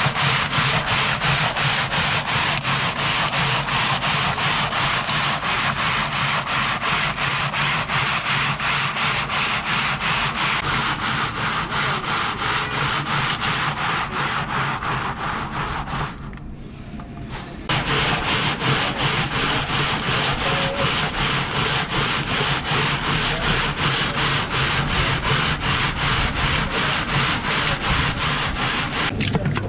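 Steady rasping, scraping noise in a fast, even rhythm, with a short lull about sixteen seconds in.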